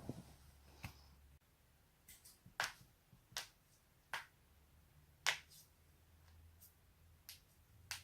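Joints being cracked: about eight sharp, separate pops at uneven intervals, the loudest a little past the middle, over a faint low hum.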